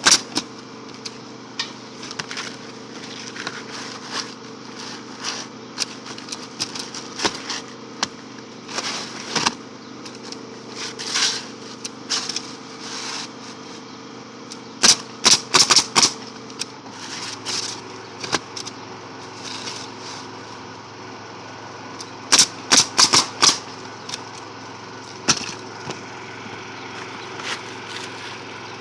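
Pneumatic roofing nailer firing nails into asphalt shingles in quick clusters of sharp shots, several in a row per shingle, with pauses between. A steady motor hum runs underneath and changes note about two-thirds of the way through.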